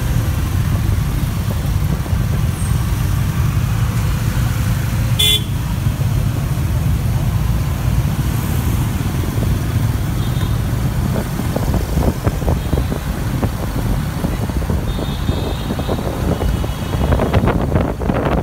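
City traffic heard from the back of a moving motor scooter: a steady low rumble of engine, tyres and wind on the microphone, with a short horn toot about five seconds in and fainter horns later. Wind buffeting on the microphone grows near the end.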